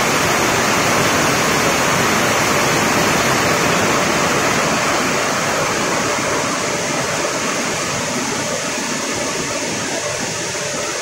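Heavy rain pouring down onto a flooded paved lane: a dense, steady hiss of drops hitting the water, easing slightly in the second half.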